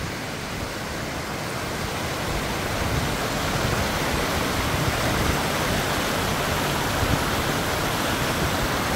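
Small woodland stream rushing and splashing down a rocky cascade, a steady sound that grows louder over the first few seconds as it is approached.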